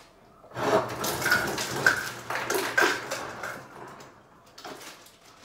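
Refrigerator door ice dispenser dropping ice cubes into a reusable water bottle: a run of clattering knocks over a low steady hum, starting about half a second in and stopping about four seconds in.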